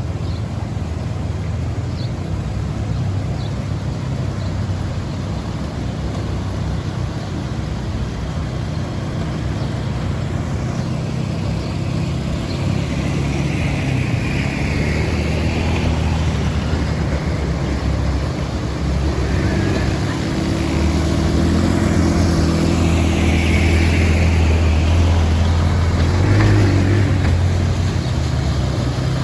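A motor vehicle's engine running steadily, the sound growing somewhat louder in the second half.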